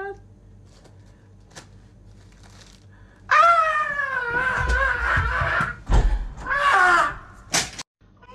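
A person's drawn-out, high wailing cry starts about three seconds in and sags slightly in pitch. A second, shorter cry follows, then a sharp click.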